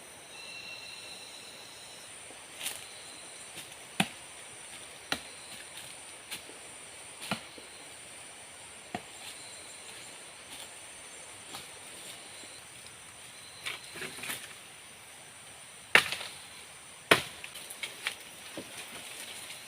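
Wood being chopped with a blade: about a dozen sharp single strikes at uneven intervals, the two loudest near the end.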